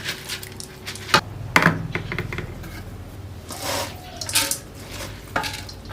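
Rice and diced vegetables being packed into a bamboo tube: a few sharp clicks and light knocks of a utensil against the bamboo, with soft scraping and rustling of the grains.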